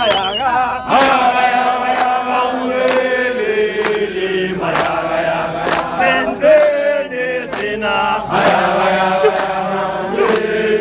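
A crowd of men singing a struggle song (igwijo) together, with scattered hand claps.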